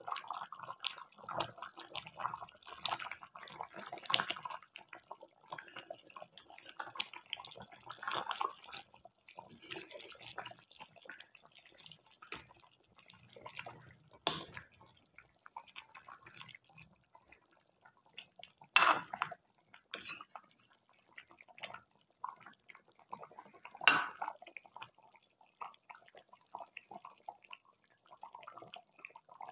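Chicken curry simmering in a metal pan, its gravy bubbling and popping in a steady crackle. Three sharp knocks, roughly five seconds apart, stand out in the second half.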